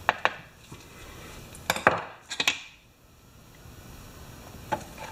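Scattered light metal clicks and clinks in small groups: small screws being picked up and set into the holes of a chainsaw gas tank cover.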